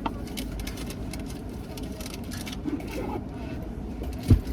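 Steady low rumble inside a car's cabin with a few faint clicks and rustles, and one short, loud low thump near the end.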